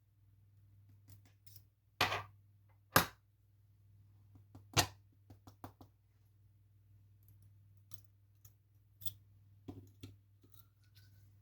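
Small metal lock parts and tools clicking and clinking as a lock is taken apart: three sharp taps about two, three and five seconds in, with lighter ticks scattered between.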